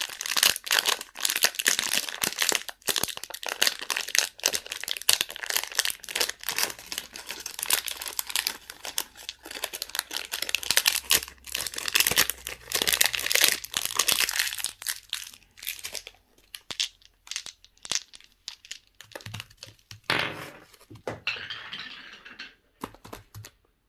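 Candy wrappers crinkling and tearing as they are unwrapped: a dense run of crackles that thins after about sixteen seconds to scattered crackles and a last short rustle.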